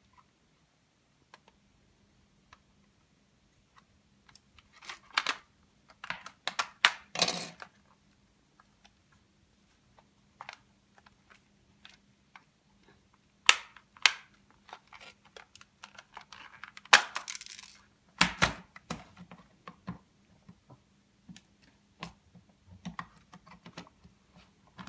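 Hard plastic clicks, knocks and rattles as the white plastic housing of a Pisector alarm panel is handled and its halves are pressed together, with clusters of louder snaps about five to seven seconds in, at about thirteen seconds, and around seventeen to eighteen seconds in. A faint steady low hum runs underneath.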